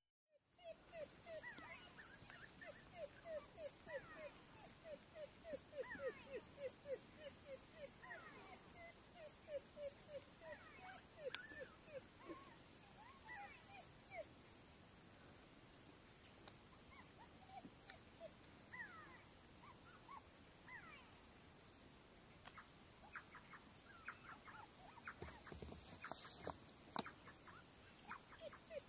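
African wild dogs at their den making a fast run of short, high calls, two to three a second, each falling in pitch. Past the middle the calls thin to a scattered few, then the rapid run starts again near the end.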